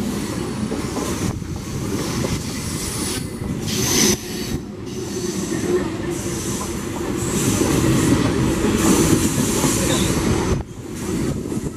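Electric multiple unit local train coaches rolling past close by: a steady, loud rumble of wheels on rail with thin high wheel squeal on and off.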